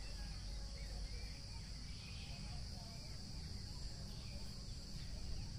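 Rural outdoor ambience: a steady high chirring of insects with faint, scattered bird chirps and a low rumble underneath.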